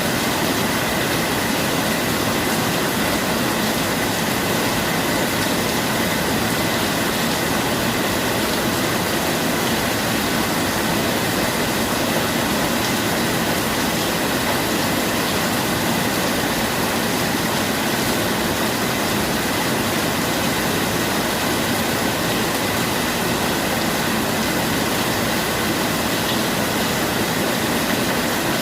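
Steady rain falling, an even hiss that does not change or break, with no thunder.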